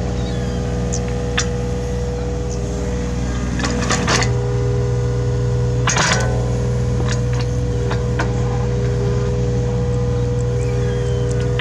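Hitachi Zaxis 33U mini excavator running steadily while digging, its diesel engine note dropping and strengthening about four seconds in, with a few sharp metallic knocks, the loudest about four and six seconds in.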